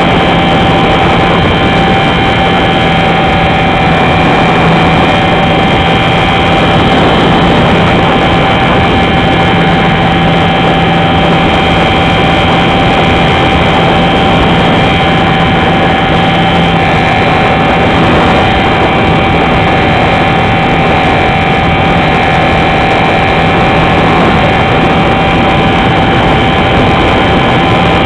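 Radio-controlled Super Cub model plane in flight, heard from a camera mounted on the plane: its motor and propeller running steadily under a loud rush of wind and propeller noise, with a constant whine.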